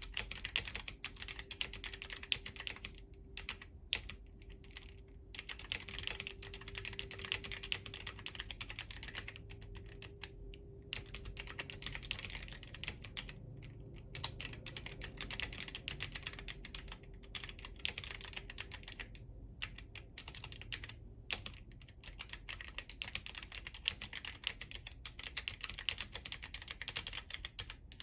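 Steady typing on a Womier K68 mechanical keyboard with clicky Kailh Box White switches and crystal keycaps: rapid, dense key clicks with a few short pauses.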